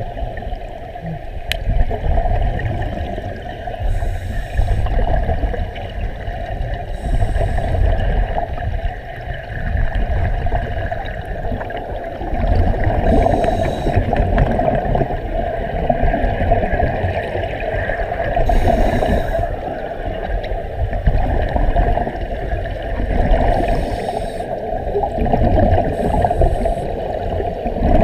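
Underwater sound picked up by a submerged camera: a steady low rumble and gurgling water noise, with short hissing swishes every few seconds.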